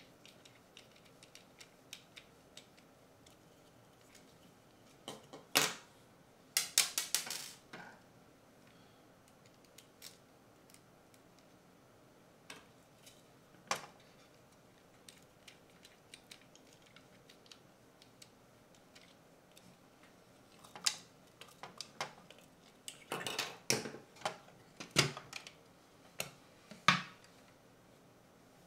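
Scattered clicks, taps and clatter of small plastic parts and a screwdriver being handled while assembling a PO-80 Record Factory turntable kit. Louder clusters of knocks come around six seconds in and again over most of the last eight seconds.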